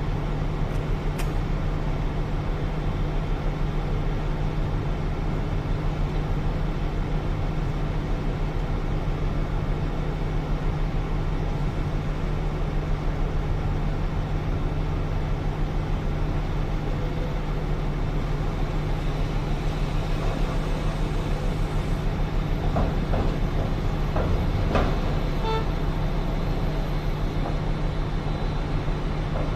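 Large diesel mining machinery running steadily, a deep continuous engine drone from the hydraulic excavator and haul truck at the loading point. A few faint knocks and a brief short tone come about three-quarters of the way in.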